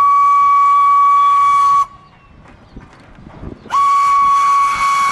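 Steam locomotive whistle blowing two long, steady single-note blasts. The first cuts off about two seconds in and the second begins just before four seconds in, with a quiet rumble between them.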